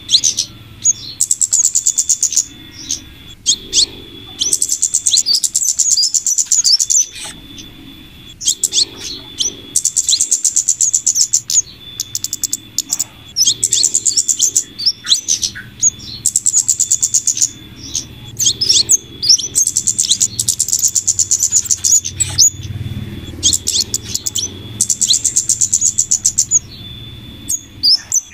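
Bird-lure recording of flowerpecker (cabe-cabean / kemade) calls: rapid trains of high, thin chirps lasting a second or two, repeated again and again with short sharp notes between them, over a steady thin high whine.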